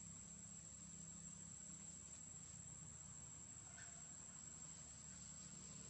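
Faint, steady, high-pitched insect drone, like crickets, with a low hum underneath.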